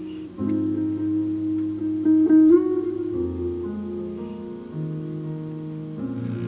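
Jazz quartet playing live: held chords from a hollow-body electric guitar over a double bass line that moves note to note, with piano and drums. The guitar is the leading voice.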